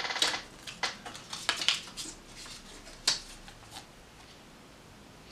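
Paper and packaging crinkling and rustling in short irregular crackles as a toy blind bag's folded paper insert is handled and unfolded, stopping about three seconds in.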